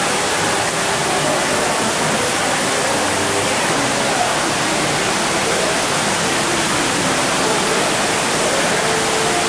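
Large indoor sculpture fountain running, its water jets splashing steadily into the basin as an even rushing noise.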